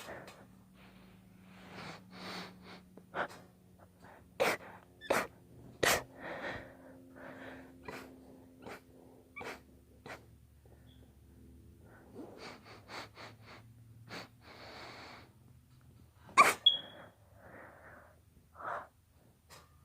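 A young girl sneezing again and again, the sneezes induced on purpose, with short sharp breaths and sniffs between them. A cluster of sharp sneezes comes about four to six seconds in, and the loudest one about three-quarters of the way through.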